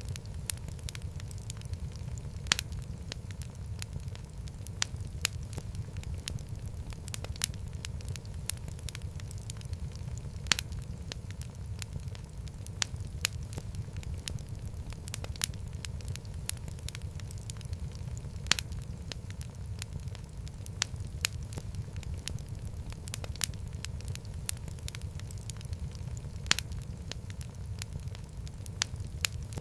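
Wood fire burning in a fireplace: a steady low rumble of flame with irregular sharp crackles and pops, a few louder snaps scattered through.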